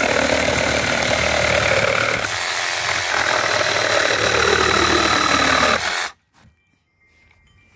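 Ryobi One+ cordless reciprocating saw cutting through the weathered slats of a wooden pallet, held one-handed. It runs steadily for about six seconds, then stops abruptly.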